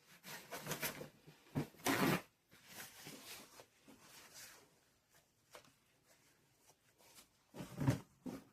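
Irregular rustling and light knocks from craft materials being handled and pulled apart by hand, with louder bursts about two seconds in and near the end.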